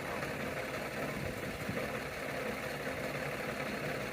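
Farm machinery engine idling steadily.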